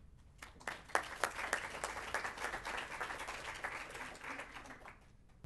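Audience applauding: many hands clapping. The applause starts about half a second in and dies away shortly before the end.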